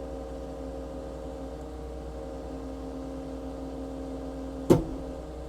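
Cat 299D3 compact track loader's diesel engine running steadily with an even hum. About three-quarters of the way through, one sharp click or knock stands out over it.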